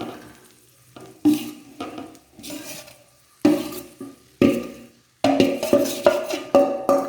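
A metal spoon stirring and scraping in a cooking pan, with a few separate knocks that ring briefly. About five seconds in, rhythmic percussive background music begins.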